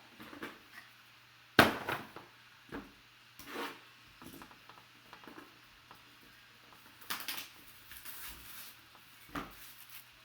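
Trading cards and their small box being handled: scattered taps, scrapes and rustles, with a sharp knock about one and a half seconds in and a longer stretch of rustling near the end.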